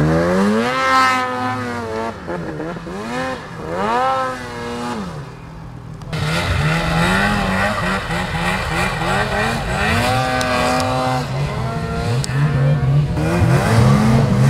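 Ski-Doo snowmobile engines revving in deep powder. The pitch rises and falls in several surges over the first five seconds. From about six seconds in, more than one sled runs together at a steadier pitch.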